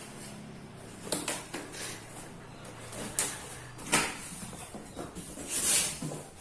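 Flat-pack furniture being unpacked: cardboard packaging and wooden panels are handled, giving a few sharp knocks and scrapes, the loudest about four seconds in, and a hissing rustle near the end.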